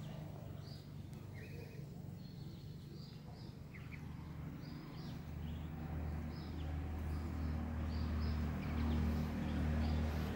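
Ducklings peeping in short, high, repeated chirps while they forage. Under them a low steady hum grows louder about halfway through and is the loudest sound near the end.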